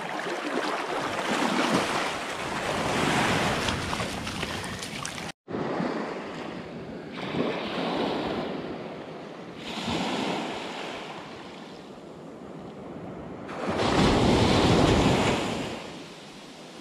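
Small ocean waves breaking and washing up a sandy beach in repeated swells, with wind on the microphone. The sound drops out for an instant about five seconds in, and the biggest wash comes near the end.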